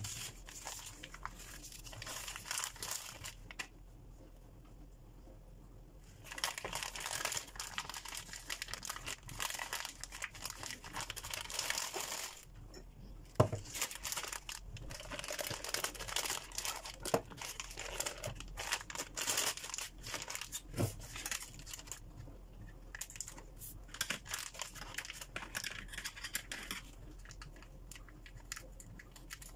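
Plastic piping bag crinkling in fits and starts as it is handled and opened, with a few sharp knocks on the countertop, the loudest about halfway through.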